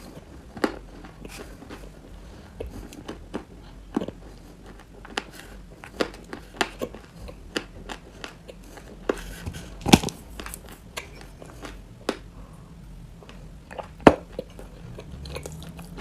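Chalk being bitten and chewed close to the microphone: irregular sharp clicks and small crackles, a couple of louder bites near the middle and near the end. The chalk gives little real crunch.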